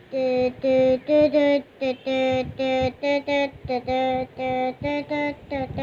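A high voice singing or chanting a string of short syllables, two to three a second, mostly on one note with a few a step higher.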